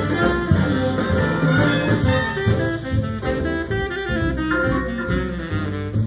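Big band jazz instrumental passage, saxophones and brass over double bass and drums, played back through a pair of Bowers & Wilkins 705 S2 bookshelf speakers.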